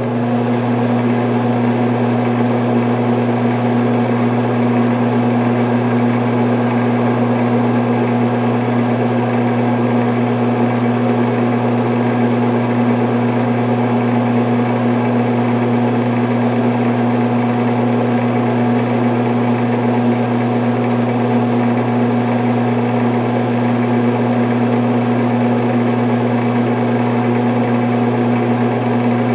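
Ventilation fan running steadily: a constant low motor hum under an even rush of moving air.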